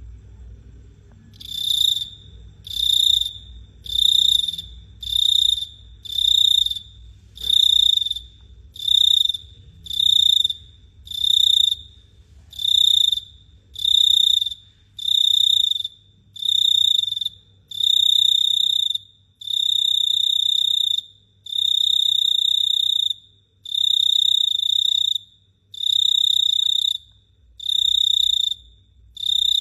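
Cricket calling: a loud, high-pitched trill repeated over and over, starting about a second and a half in. The trills come about once a second at first and grow longer and more widely spaced later on, over a faint low hum.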